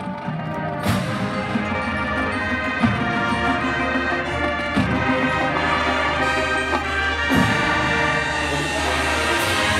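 High school marching band playing its field show: brass sustaining full chords over front-ensemble and drum percussion, with sharp percussion hits about a second in and every couple of seconds after, growing slightly louder toward the end.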